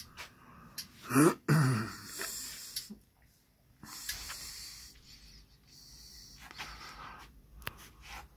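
A man's breath and a short voiced grunt about a second in, followed by breathy exhales close to the microphone. A few small sharp clicks near the end.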